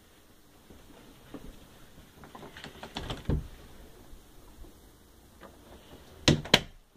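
A closet door is opened with a few clicks and rattles about three seconds in, then shut with two sharp knocks close together near the end.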